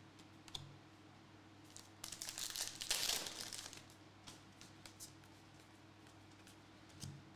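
Foil trading-card pack wrapper crinkling and tearing for about two seconds, with a few faint clicks before and after.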